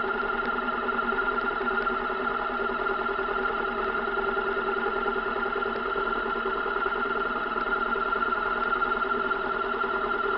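Honda CB500FA's parallel-twin engine idling in neutral, with a steady, unchanging tonal note laid over it: the weird noise the owner hears at neutral idle.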